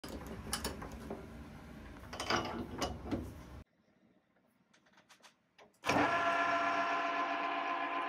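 Metal lathe: clicks and clanks as its handwheels and levers are worked, then a short near-quiet gap. About six seconds in, the lathe comes in running with a steady whine of several fixed tones.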